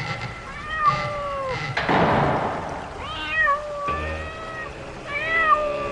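A cat meowing three times in drawn-out, bending calls, with a short burst of hissing noise about two seconds in, over a faint steady drone.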